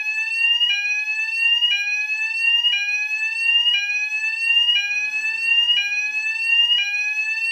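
UK fire alarm sounder base sounding its sweep tone. A shrill electronic tone climbs in pitch over about a second, then drops back abruptly and repeats at an even pace.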